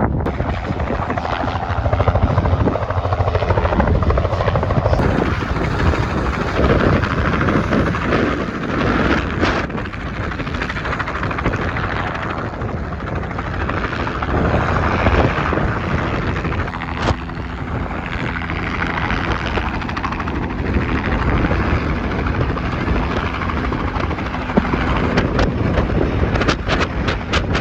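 Helicopter running close by, a steady loud rotor and engine noise, with a run of sharp buffets or clicks near the end.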